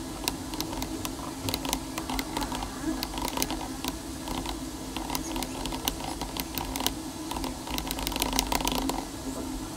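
Typing on a computer keyboard: a quick, irregular run of key clicks, with a steady low hum underneath.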